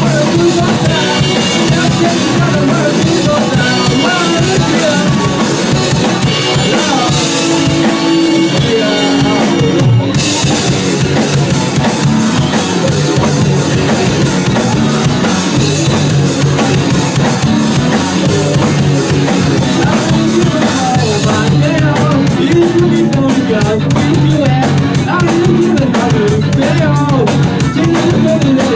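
Rock band music with a full drum kit, bass drum and cymbals, played loud and steady. The mix changes about ten seconds in, and again about two-thirds of the way through.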